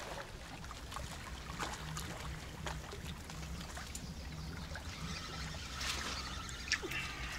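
Water lapping and trickling at a lakeshore under a steady low hum, with a few soft clicks and knocks scattered through and a small cluster of them near the end.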